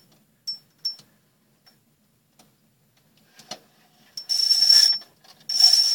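Fishing reel drag clicking with a few single sharp ticks, then buzzing in two longer runs near the end as a northern pike pulls line off the reel.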